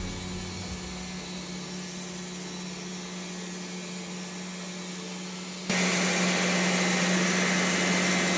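Wood-Mizer LT70 band sawmill running with a steady hum. A little over halfway through it becomes abruptly louder and harsher.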